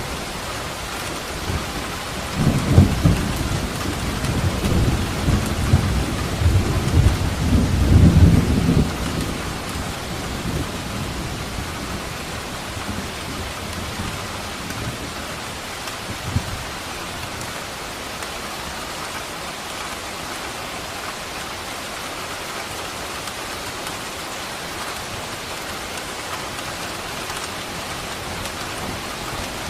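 Steady heavy rain with a rolling clap of thunder whose low rumble runs from about two seconds in to about nine seconds, loudest at its start and again near its end; a faint low thump comes a little past the halfway point.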